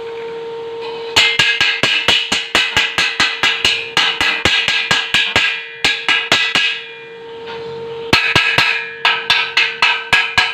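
Rapid metal-on-metal tapping on square hollow steel tube, about five or six ringing strikes a second in runs with short pauses near the middle and end, over a steady hum.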